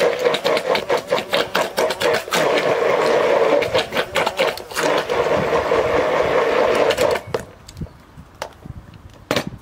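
Handheld immersion blender running in a tall beaker of thick avocado puree: a steady motor hum with a rapid run of clicks and knocks from the blending. The motor stops about seven seconds in, and one more click follows near the end.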